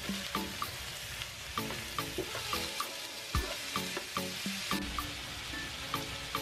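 Cubes of raw pork belly sizzling in oil in a frying pan with onion, garlic and ginger, being sautéed and stirred with a metal spoon at the start of browning.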